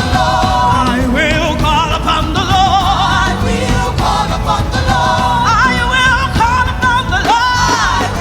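Live gospel praise music: voices singing with vibrato over a band accompaniment with a steady beat and bass.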